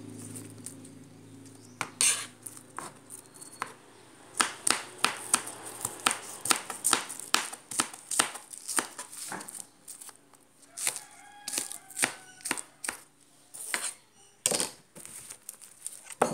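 Knife chopping vegetables on a cutting board: a run of quick, sharp strikes, about two to three a second, starting about four seconds in.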